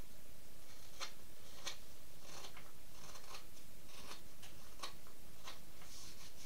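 Carving knife paring small shavings from the pine bill of a wooden duck decoy: a series of short, crisp slicing cuts, roughly one every three-quarters of a second.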